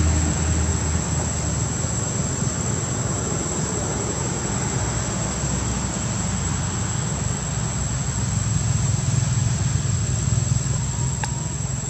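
Insects droning steadily at one high pitch over a constant hiss and a low rumbling background, with a single faint tick near the end.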